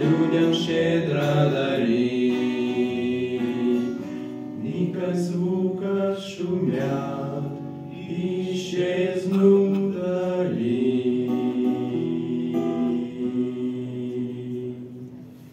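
Three male voices singing a slow song in harmony to a strummed acoustic guitar, the sound dying away near the end as the song closes.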